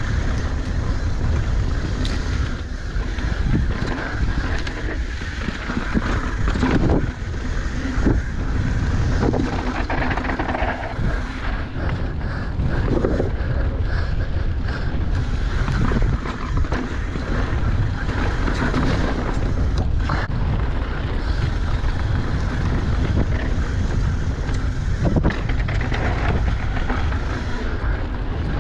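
Wind rushing over the camera microphone on a fast downhill mountain bike descent, with tyres rolling over a dirt trail and frequent knocks and rattles from the bike over bumps.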